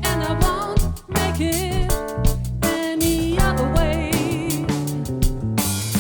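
Live band playing a funk-soul arrangement: a drum kit and a steady low bass under a lead melody line held with vibrato.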